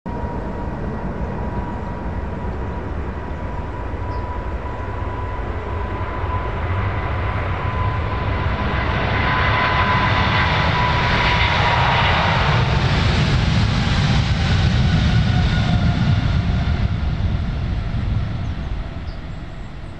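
Boeing 777-200LR's twin GE90 turbofan engines running at takeoff power on the takeoff roll: a loud, steady jet noise with a high fan whine that sinks slightly in pitch as the airliner passes. It builds to its loudest around the middle and fades near the end.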